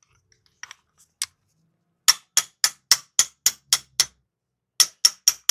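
Socket ratchet wrench clicking on an engine bolt: a few stray clicks, then a steady run of sharp metallic clicks about four a second, which pause briefly near the end and start again.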